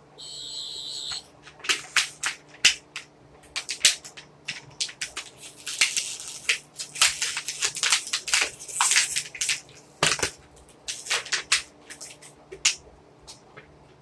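Plastic packaging crinkling and crackling as it is handled, a dense run of sharp irregular crackles. There is a brief high electronic buzz in the first second.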